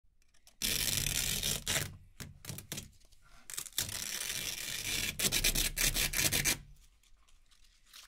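Velcro hook-and-loop strips being peeled apart by hand: a series of crackling rips, some long and some short, stopping about two-thirds of the way through.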